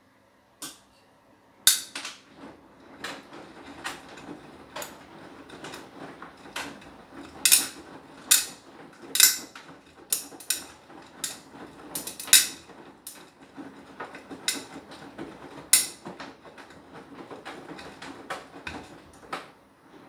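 Beko WTK104121W washing machine drum turning a load during its Anti Allergy cycle: irregular sharp clacks and knocks, roughly one a second, over a faint low motor hum, starting after a quiet pause.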